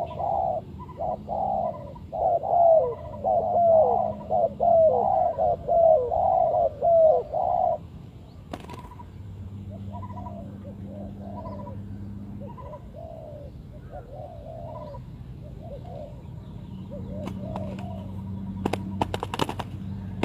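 Spotted dove cooing: about eight seconds of loud, closely repeated coos, then quieter, more spaced coos. A few sharp clicks near the end.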